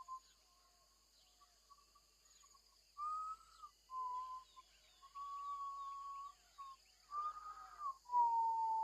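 A person whistling: a single steady, slightly wavering note near 1 kHz, faint for the first few seconds, then five louder held notes with short breaks, with breath noise audible under them.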